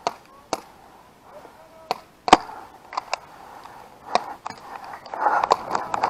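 Paintball markers firing: scattered sharp pops, the loudest a little over two seconds in, then a quicker run of shots near the end.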